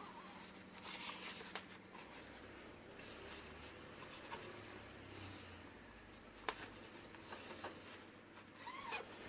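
Faint scratchy rubbing of a brush scrubbing a subwoofer's front panel, with a few light clicks and taps, one sharper about two-thirds of the way through.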